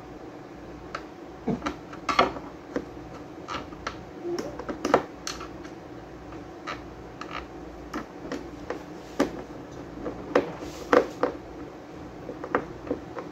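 A screwdriver driving small screws to fix the amplifier board inside a chipboard speaker cabinet: irregular clicks, taps and scrapes of the metal tip and screws, a few of them louder knocks. A faint steady low hum lies underneath.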